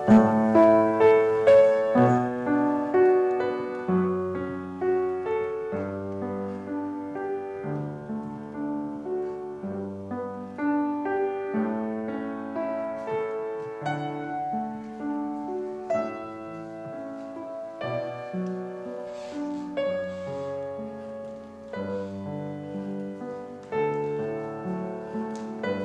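Solo piano music played at a gentle pace, with a bass line under a melody.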